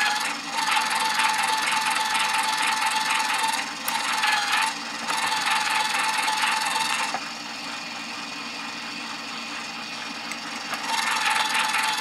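Electric Lyman case prep center running steadily while a brass case is pressed by hand onto its spinning primer pocket cutter, scraping away the primer crimp with a ringing grind. The cutting comes in spells, breaking off for a moment about four seconds in, stopping at about seven seconds to leave only the motor running, and starting again near the end.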